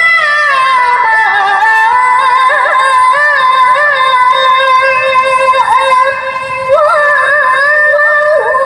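A woman reciting the Qur'an in the melodic tilawah style into a handheld microphone: long held notes with ornamented turns, with a brief drop about six seconds in.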